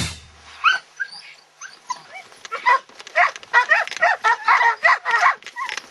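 Pointer bird dogs yipping and whining in a string of short, high calls, few at first and then coming quickly one after another from about halfway in.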